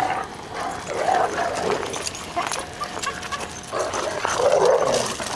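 Dogs barking and yipping as they play together, loudest near the end.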